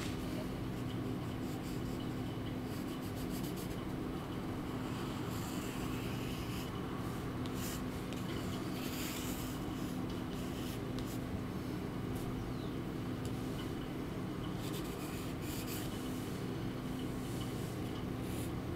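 Pencil drawing on paper: faint scratching strokes of the pencil tip, coming in short irregular runs, over a steady low hum.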